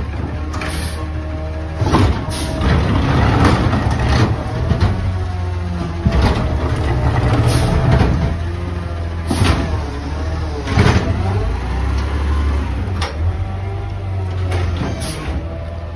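Natural-gas automated side-loader garbage truck working its lift arm: the engine runs up under load to drive the hydraulics, with a whine that rises and falls. About six sharp bangs as the cart is lifted, shaken out over the hopper and set back down.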